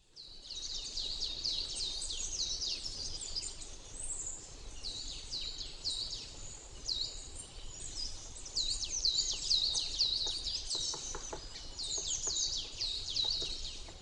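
Birds chirping: a dense, continuous run of short, high, hooked chirps repeating several times a second, over a faint low background noise.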